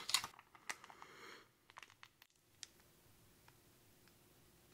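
Plastic MRE jelly packet crinkling and crackling as it is torn open and handled. A cluster of small crackles comes in the first second and a half, then a few faint scattered clicks.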